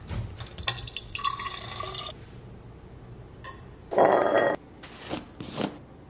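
Water running from a filter dispenser's spigot into a glass bottle for about two seconds, with a steady filling tone. About four seconds in, a loud clunk and glassy clink as the bottle is set down on the countertop, followed by a couple of lighter knocks.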